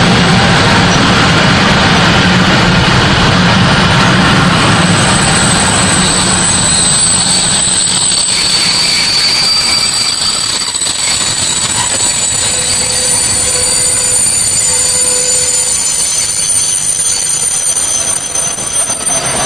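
Covered freight wagons of a long freight train rolling past close by, a steady rumble of wheels on rail. High, steady wheel squeals come and go from about five seconds in, and the low rumble eases somewhat later on.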